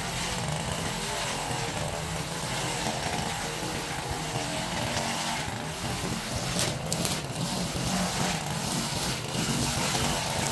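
Small gasoline engine of lawn-care equipment running steadily while cutting grass, with a few sharp clicks about two-thirds of the way through.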